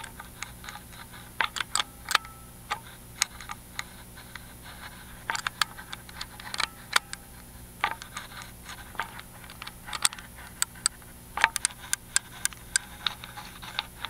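Lock pick and tension wrench working the spooled magnetic pins of a Miwa EC cylinder lock: irregular sharp ticks and light scrapes, a few a second, over a faint low steady hum.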